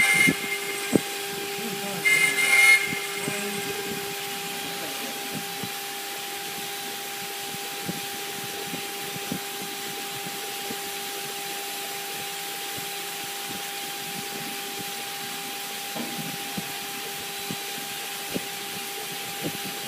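CNC router spindle running with a steady whine and hiss as its end mill cuts into a wooden post turned on a rotary axis. The cutting gets louder and harsher right at the start and again about two seconds in, with scattered light knocks from the cut.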